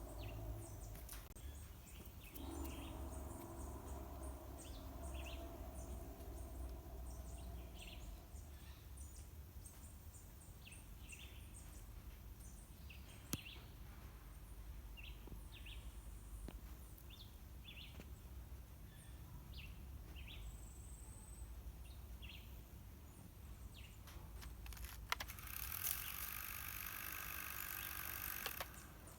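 Faint birds chirping in short scattered calls over a low steady background rumble. A hum with several steady tones runs for a few seconds early on, and a louder hissing noise rises near the end and cuts off suddenly.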